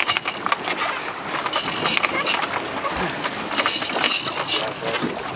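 Wind buffeting the microphone and sea noise on an open boat: a rough, uneven rushing with frequent crackles.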